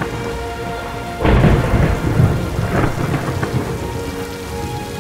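Thunderstorm sounds: steady rain with a loud roll of thunder starting about a second in, then a smaller rumble a little later.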